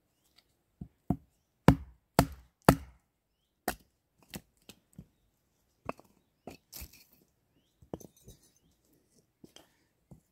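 Batoning firewood: a wooden baton knocking the spine of a knife down through an upright log resting on a stump. About a dozen sharp wooden knocks at an uneven pace, the three loudest in quick succession about two seconds in, then lighter, more spaced strikes.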